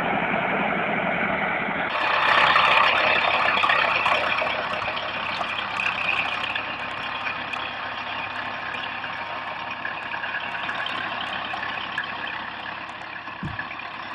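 Heavy vehicle engine running, a dense steady noise without a clear pitch. About two seconds in the sound changes abruptly and grows louder, with faint clicks above it.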